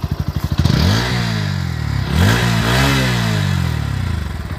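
Bajaj Pulsar NS160 BS6 single-cylinder engine idling, then revved twice, each rev rising and falling back to idle, heard through its small underbelly silencer.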